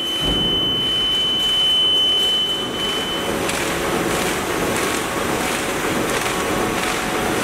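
A bag-making machine for laminated film, with center and bottom sealing, running. There is a steady mechanical whir with a thin high whine that stops a little under halfway. After that a regular beat of strokes comes about twice a second.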